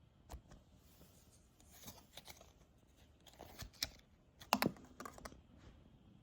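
Packaging being handled and opened by hand: a scatter of short scrapes, clicks and rustles, the loudest a quick double knock about four and a half seconds in.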